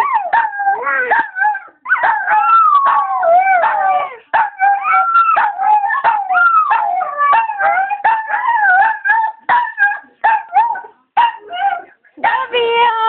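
A Chihuahua howling in long, wavering cries that glide up and down in pitch, with a woman's voice singing along in drawn-out notes. Near the end the howl breaks into shorter, choppier cries.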